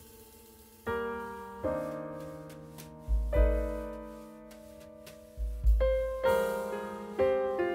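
Background piano music: a slow run of chords, each struck and left to fade, with deep bass notes joining about three and five and a half seconds in.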